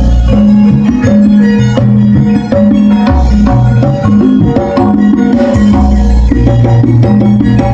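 Loud music with a steady drum beat and a repeating bass line.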